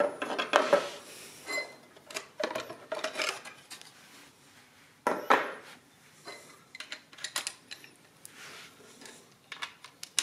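Clatter and knocks of the outer cases being lifted off and set down on two Victor adding-listing machines, with metal parts of the bare mechanisms and crank rattling. Irregular bursts come a second or two apart.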